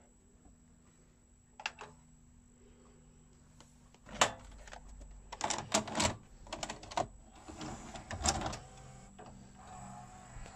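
Sharp VC-A38 VHS video cassette recorder's tape mechanism working: a few faint clicks, then from about four seconds in a run of sharp clicks, clunks and whirring for some four seconds, settling into a low steady hum.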